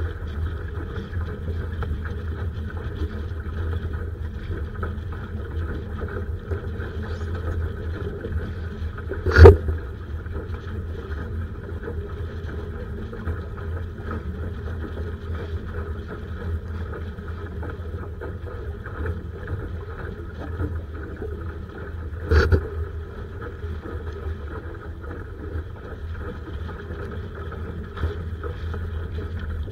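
Steady low rush of wind and water around a Laser sailing dinghy, with two sharp knocks: a loud one about nine seconds in and a lighter one about twenty-two seconds in.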